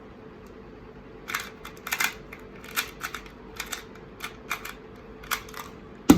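Plastic 2x2 Rubik's Cube layers clacking in quick, irregular turns as it is speed-solved, with a louder sharp knock near the end.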